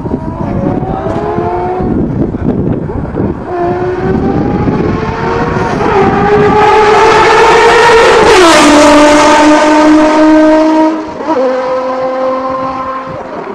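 Ferrari supercar accelerating hard through the gears as it approaches, its engine pitch climbing and dropping back with each upshift, then passing at speed with a sharp fall in pitch about eight seconds in and fading as it draws away.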